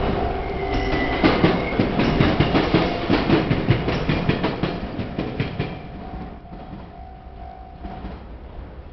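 A train passing over a railway level crossing, its wheels clattering rapidly over the rail joints, then fading about six seconds in. The crossing's warning bell rings steadily under it and stops about eight seconds in.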